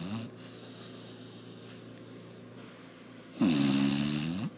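Four-and-a-half-month-old Labrador retriever puppy snoring in its sleep. A snore trails off at the start, and another snore of about a second comes near the end, dipping in pitch and rising again.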